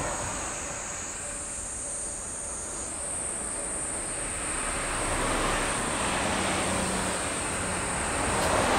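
Insects, likely cicadas, shrilling in a steady high drone, while the rumble of an approaching 383 series electric limited-express train grows gradually louder through the second half.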